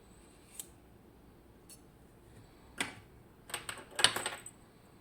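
Small metal clicks and clatter of lock parts and tools while a Miwa EC lock is being disassembled: a few single sharp clicks, then a quick cluster of clicking and rattling about three and a half seconds in, loudest around four seconds.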